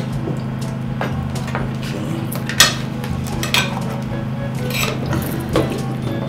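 Serving spoon and cutlery clinking and scraping against plates and serving dishes in scattered short knocks, the sharpest about two and a half seconds in, over a steady low hum.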